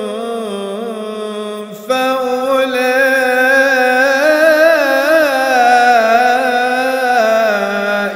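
A male Quran reciter's voice in melodic tajweed recitation, drawing out a long, wavering, ornamented note. It steps up louder about two seconds in and dies away in reverberation at the end.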